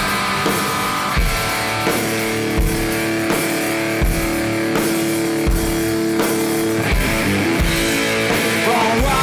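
Background rock music: held guitar chords over a steady drum beat.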